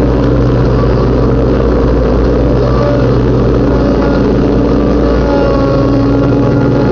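Riding lawnmower's engine running loud and steady as the mower cuts grass.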